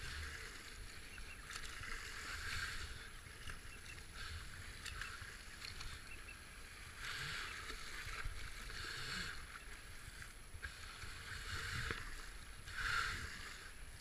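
Whitewater rushing and splashing around a kayak running through rapids, swelling louder every few seconds as the boat hits waves.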